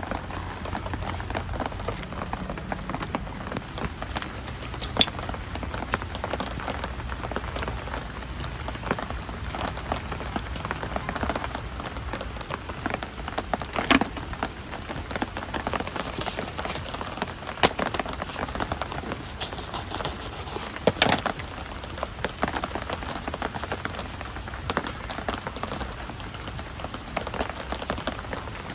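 Steady rain falling, a dense run of fine drop ticks with a few sharper, louder drips scattered through.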